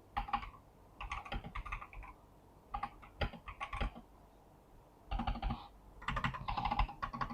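Typing on a mechanical keyboard: quick runs of key clicks in short bursts, with brief pauses between them.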